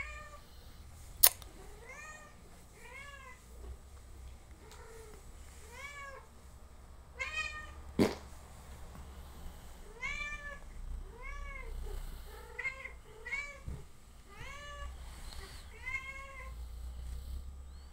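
Siamese-type cat giving a long run of short meows, roughly one every second, each rising and falling in pitch. Two sharp clicks, about a second in and about eight seconds in, are the loudest sounds.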